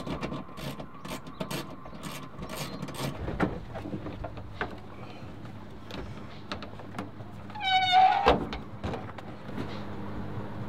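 Clicks, knocks and rustles of car interior trim and wiring being handled by hand, with one short high-pitched squeal about three-quarters of the way through.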